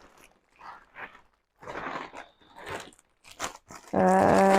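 Plastic packaging rustling and crinkling in short bursts, with a few sharp clicks, as a parcel is handled and opened. Near the end a voice holds one steady hum for about a second.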